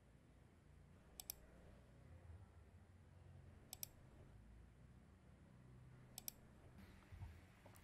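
Faint computer mouse clicks: three quick pairs of clicks about two and a half seconds apart, then a single click near the end, over a low room rumble.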